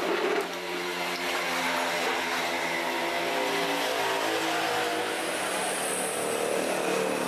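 A motor vehicle engine running steadily, its pitch wavering a little.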